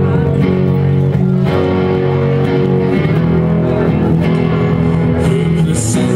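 Live rock band playing an instrumental passage: electric guitars and bass guitar sounding held chords and notes, with no vocals.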